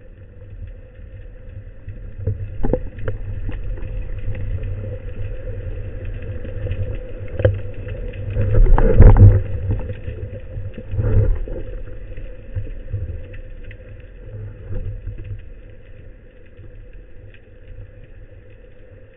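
Underwater sound picked up by a camera in a waterproof housing: a low rumble of water moving past, with scattered clicks and knocks and a loudest swell about nine seconds in, over a faint steady hum.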